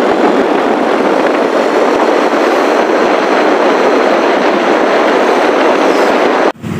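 Steady rush of wind and road noise from riding along on a motorcycle, with no distinct engine note standing out. It cuts off suddenly near the end.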